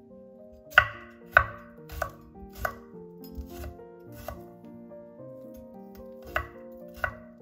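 Chef's knife slicing garlic cloves on a wooden cutting board, each cut ending in a sharp tap of the blade on the wood. The taps come about every half second at first, loudest near the start, then softer and more spread out, with two more near the end.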